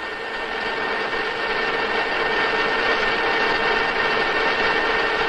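Centre lathe running steadily as its tool takes a heavy cut on a spinning metal bar: a steady machine hum with a thin higher whine over continuous cutting noise.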